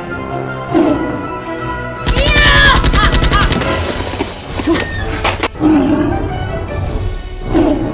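A burst of rapid automatic gunfire about two seconds in, lasting about a second and a half, over music, with short vocal cries scattered through.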